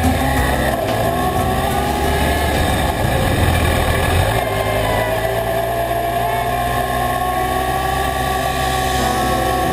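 Motorcycle engine running while riding, its pitch rising slowly as the bike gathers speed, with wind and road noise rushing over the bike-mounted microphone.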